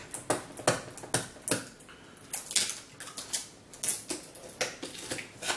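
Cardboard box being handled and opened by hand: a string of irregular sharp clicks and taps as fingers pick at and lift the lid flap.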